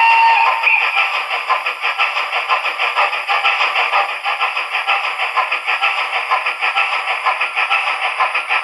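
Sound decoder in a TT-scale BR 58 steam locomotive model, playing through its small Dumbo speaker. A steam whistle tone dies away shortly after the start. Then comes a steady, rhythmic steam chuff as the model runs, thin and without any deep tones.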